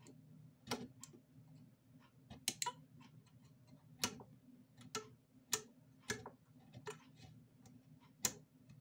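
Small metal tool clicking and tapping against the metal connecting strip on a pair of 18650 battery cells: about ten sharp, irregular clicks, over a low steady hum.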